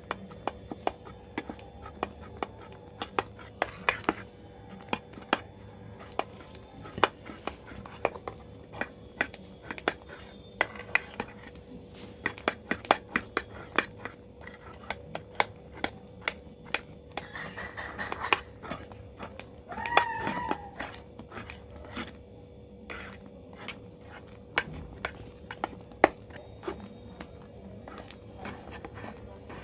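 A metal spoon stirring thick slime in a glass baking dish: frequent irregular clinks and taps of metal on glass, over a soft wet stirring noise.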